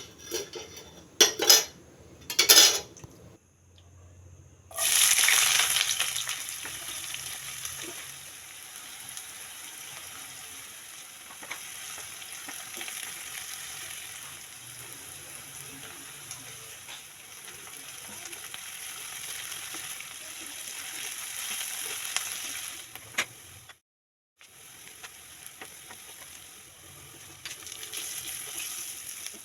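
A few sharp knocks, then chicken sizzling in a hot pan. The sizzle starts loud about five seconds in and settles to a steady hiss, with a few light utensil clicks, and breaks off briefly near the end.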